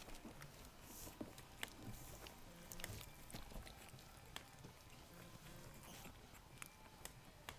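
Faint snuffling and mouthing sounds of an 18-day-old Havanese puppy being handled, with scattered small clicks.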